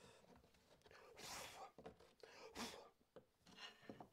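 Near silence with a few faint rustles and light knocks, as of a small piece of wood being handled.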